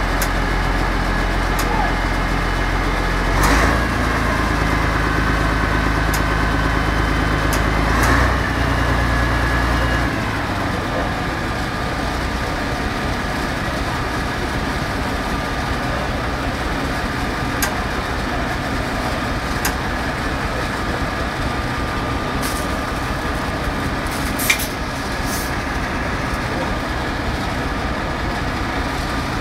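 Fire engines' diesel engines running steadily, with indistinct voices in the background. The engine note shifts about three and a half seconds in and settles lower about ten seconds in.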